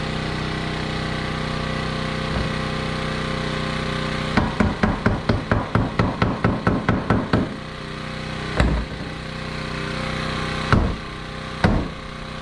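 A hammer tapping on wood: a fast run of about fifteen blows, roughly five a second, then three single heavier blows spaced a second or two apart, as a 2x4 is knocked into place in a door frame. A steady engine-like hum runs underneath.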